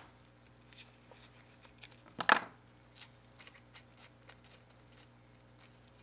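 Light clicks and ticks of a small wire brush wheel being unscrewed by hand from its mandrel shaft, with one louder click about two seconds in.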